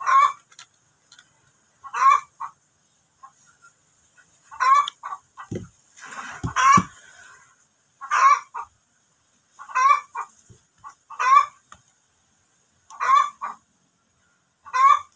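A chicken clucking over and over, short calls coming about every one and a half to two seconds, with a faint steady high hiss behind.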